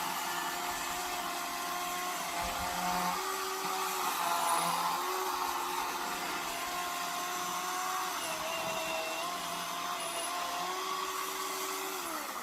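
Ryobi ONE+ 18V HP brushless 10-inch battery chainsaw cutting through a tree trunk: the felling back cut above the notch. It runs with a steady electric whine that dips in pitch as the chain bites into the wood, and starts to wind down near the end.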